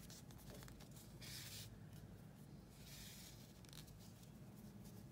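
Faint rustle of red yarn being drawn through crocheted fabric while hand-sewing with a needle: two soft swishes, one a little over a second in and one about three seconds in, over near-silent room tone.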